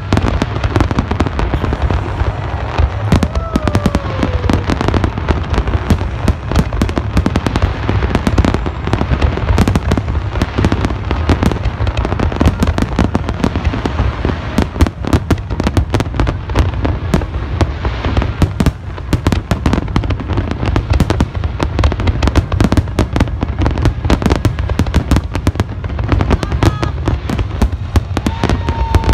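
Large fireworks display: a continuous barrage of overlapping bangs and crackles over a deep rumble, easing briefly about two-thirds of the way through.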